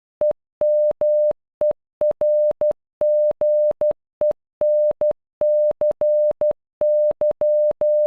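Synthesized Morse code beeps, one steady mid-pitched tone keyed in short dots and long dashes, spelling out the word "EMERGENCY" once: . -- . .-. --. . -. -.-. -.--.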